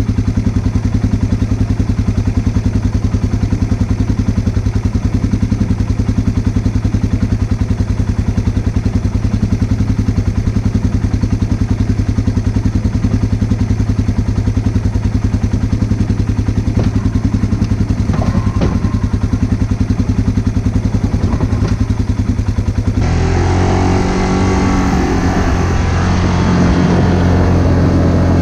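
An engine running steadily with a fast, even pulse; about 23 seconds in its note changes and gets a little louder, as if the throttle is opened or the machine starts moving.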